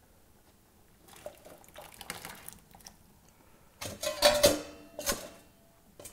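Metal pots and utensils clattering while cooking: soft scraping and rustling, then a loud clang with a ringing tone about four seconds in, and one more knock about a second later.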